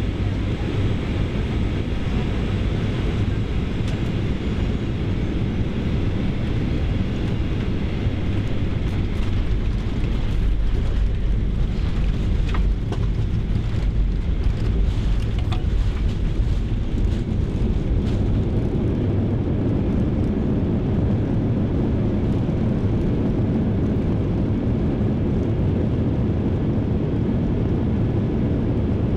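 Cabin noise inside a Boeing 737-800 moving along the ground just after landing: a steady low rumble of its CFM56 engines and rolling wheels. It grows a little louder for several seconds midway.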